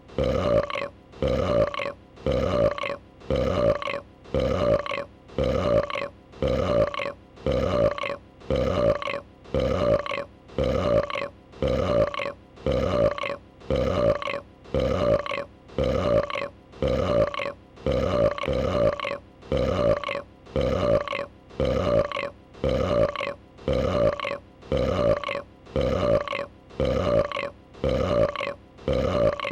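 A female dragon's burp sound effect played in a loop: the same short burp repeats about once a second, identical each time.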